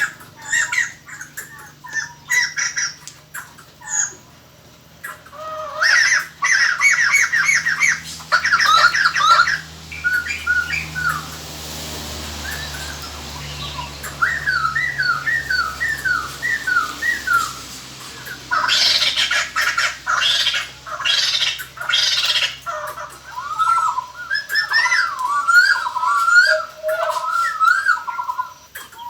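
White-crested laughingthrushes calling: loud bursts of harsh, cackling group chatter alternating with runs of short whistled notes that rise and fall.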